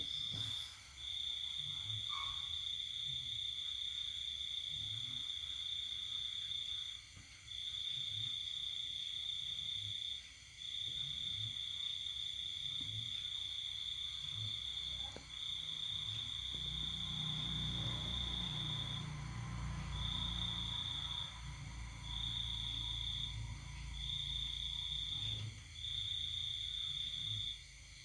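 Crickets singing at night: a continuous high, even-pitched trill that runs for several seconds at a time, broken by short pauses.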